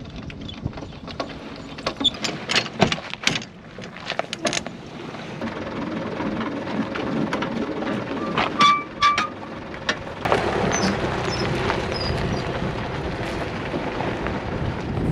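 Caravan corner steady being wound with a bent hand crank: a quick run of metallic clicks and clanks. Two short squeaks follow later, then a steady hiss of noise takes over.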